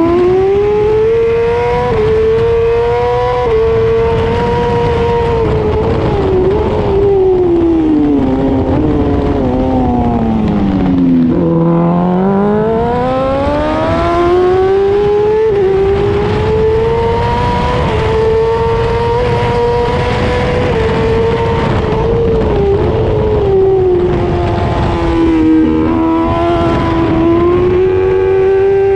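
British Superbike engine at race pace, heard from an onboard camera over rushing wind. The pitch stays high with small dips at gear changes, falls steeply as the bike slows for a tight corner about eleven seconds in, then climbs back as it accelerates out.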